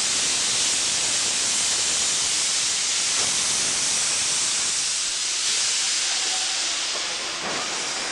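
Steam locomotive hissing steadily as steam escapes around its cylinders and driving wheels, easing off a little near the end.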